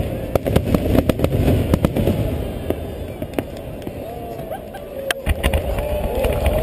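Aerial fireworks going off: a rapid run of sharp cracks over a low rumble for the first two seconds, thinning out, then another cluster of bangs about five seconds in.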